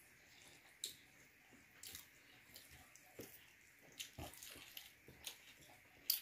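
Faint, wet eating sounds: chewing and lip smacks from someone eating by hand, heard as a scattered handful of short clicks and smacks.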